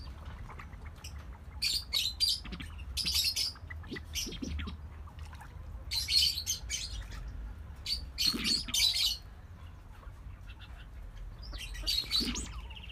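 Mandarin ducks calling: about five bouts of short, high-pitched squeaky calls over a low steady hum.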